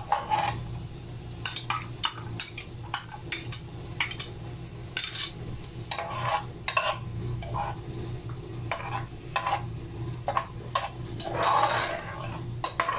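Metal spoon stirring chopped onions frying in oil in a pot, with irregular scrapes and clinks against the pot, busier near the end, and the onions sizzling underneath.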